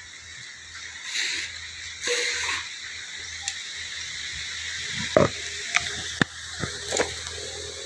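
Animal sounds from a wire-mesh pen: two short hissing bursts about a second apart, then a run of short, sharp sounds near the end.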